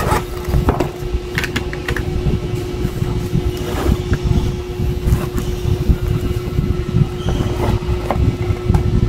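Steady low rumble with a constant hum, with scattered light clicks and taps of plastic pens and a clear plastic box being handled.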